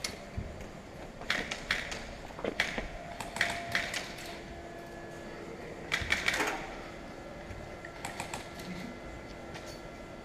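Scattered sharp clicks and light knocks, coming in short irregular clusters.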